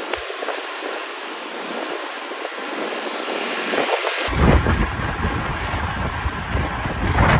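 Street traffic with motor scooters and cars running alongside, heard from a moving bicycle; about four seconds in it changes abruptly to a heavy, uneven low rumble of wind buffeting the microphone.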